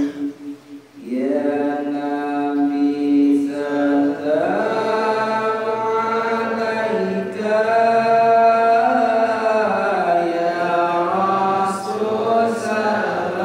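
A man's solo voice chanting into a microphone in a slow, melismatic style. He holds long notes and glides slowly up and down between pitches, with a short breath pause about a second in.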